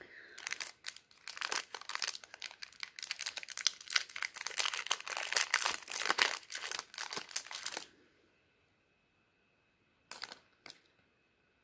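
Small snack wrapper crinkling and tearing as a chocolate caramel cup is unwrapped by hand: a dense, busy run of crackles for about eight seconds, then quiet apart from two short crinkles near the end.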